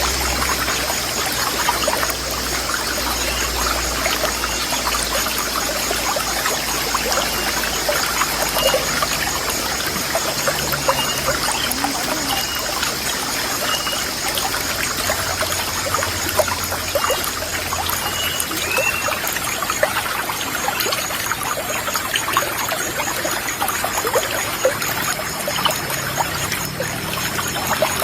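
River water running and splashing over rocks, a steady rushing trickle.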